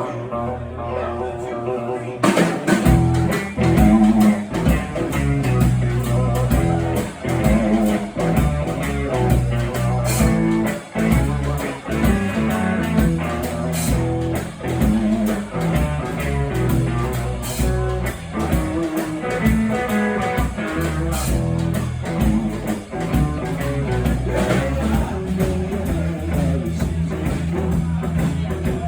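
Band playing a blues-rock number: guitar alone at first, then about two seconds in the drum kit and the rest of the band come in and play on.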